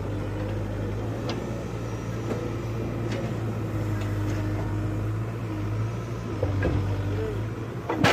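Backhoe loader's diesel engine running steadily, with a wavering hydraulic-type whine over it. There are a few light knocks, and a sharp, louder clank at the very end.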